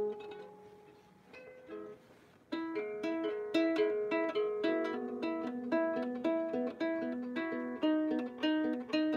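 Out-of-tune harp being plucked: notes ring and fade, a few soft notes follow, then from about two and a half seconds in a steady run of plucked notes comes in, about three a second, in a repeating pattern.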